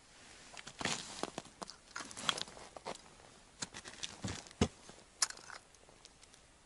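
Irregular crunching and scraping of boots on snow-covered ice, with rustling of a winter jacket, as an ice angler strikes and gets to his feet to pull in the line by hand. The crunches are heaviest through the middle, with one low thump about four and a half seconds in, and die away near the end.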